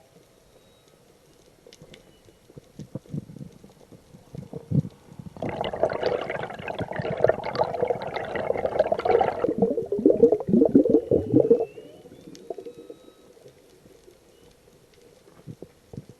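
Whale calls: about five seconds in, a loud, dense gurgling call lasting some four seconds, then a quick run of low pulses that stops about twelve seconds in, with faint high calls afterwards.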